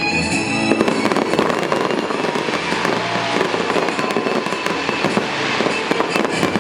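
Fireworks display: a dense, continuous run of bangs and crackles, starting about a second in.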